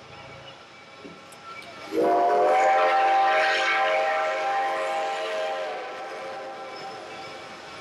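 Steam whistle of Reading T1 4-8-4 locomotive No. 2102 blown in one long blast beginning about two seconds in, bending up in pitch as it opens, then holding and fading away over about four seconds. A low running noise of the slow-moving train lies underneath.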